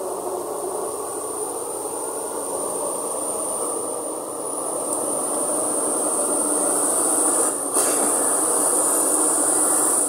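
Komatsu D85ESS-2 crawler bulldozer driving closer, its diesel engine running and its steel tracks clanking, getting louder throughout. A high-pitched squeal from the tracks builds from about halfway.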